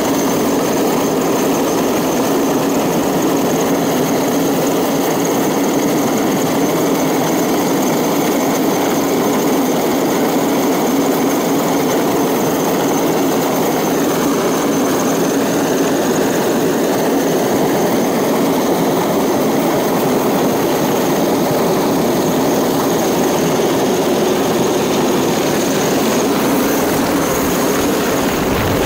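Large military helicopter hovering low overhead: a steady, loud rush of rotor and engine noise with a faint steady high whine on top.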